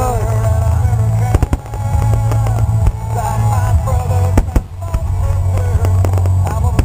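A fireworks display with shells bursting in repeated sharp bangs, several close together, over music playing.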